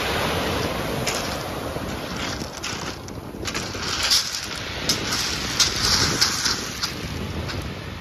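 Ocean surf breaking and washing up a pebble beach, with wind buffeting the microphone. The wash eases about three seconds in, then swells again with sharp crackles.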